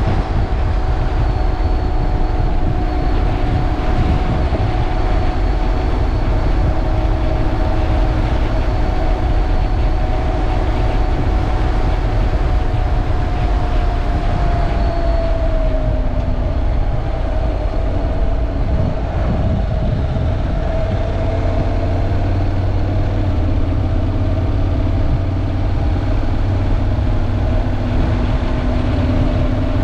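Honda NC750X's parallel-twin engine running at a steady ride, under a loud low rumble. About halfway through, the engine note dips slightly as the revs change.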